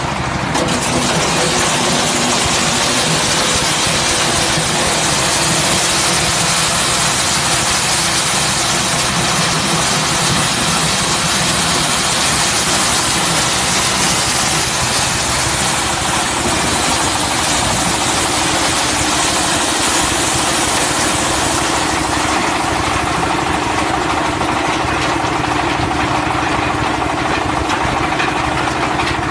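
A small tractor's engine running steadily, driving a PTO-mounted corn sheller, with the dense rattle and hiss of cobs being shelled as corn is fed into the hopper. The high rattle eases a little toward the end.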